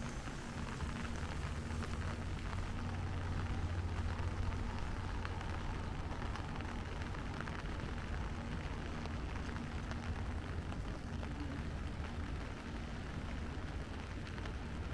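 Steady rain falling, heard as an even hiss, over a constant low rumble with a faint hum.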